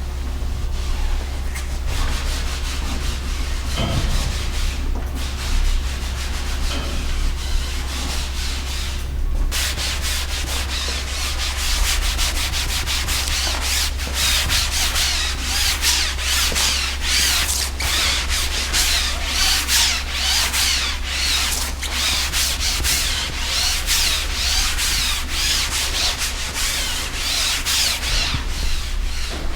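Repeated hand rubbing or brushing strokes on a surface, in quick back-and-forth passes a few times a second. It is softer at first and brisker and brighter from about a third of the way in.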